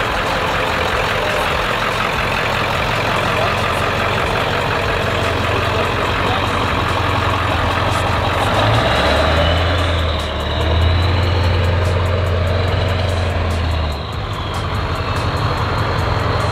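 Ford Super Duty pickup's Power Stroke diesel engine running as the truck pulls away. The engine note grows louder and deeper from about eight seconds in, then drops back at about fourteen seconds.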